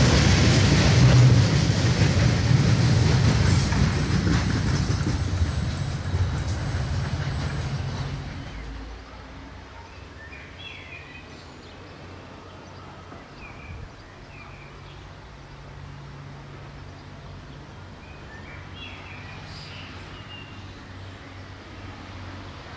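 A heavy KiwiRail freight train's tank-container wagons rolling past, wheels clattering on the rails. About eight seconds in this cuts off abruptly to a quiet outdoor background with a low distant hum and a few bird chirps.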